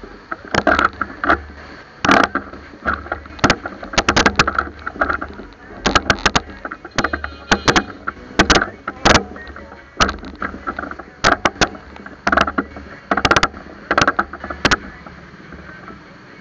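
Irregular sharp knocks and rattles, coming in quick bunches all through, from a camera and its mount jolting on a fat bike riding over a rough street, over steady street background noise.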